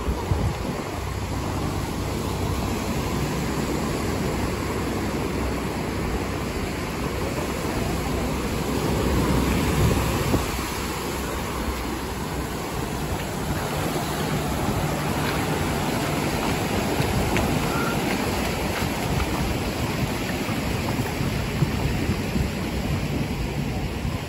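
Ocean surf breaking and washing up onto the sand in a steady wash, with wind rumbling on the microphone. The surf swells a little louder about ten seconds in.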